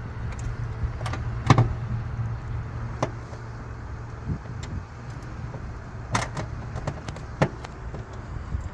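A few separate clicks and knocks of a 10 mm socket and wrench on the module's metal mounting nuts, over a steady low hum.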